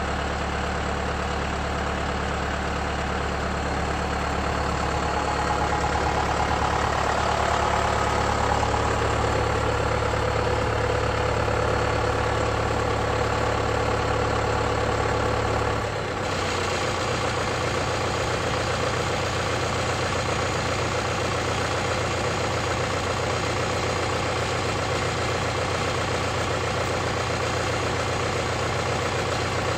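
John Deere tractor engine running steadily, with a low, even drone. About halfway through, the engine note changes abruptly.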